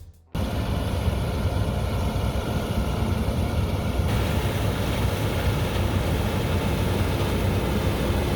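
Case IH 8230 combine harvester running steadily at work: a heavy diesel engine with threshing machinery noise, cutting in abruptly a moment in.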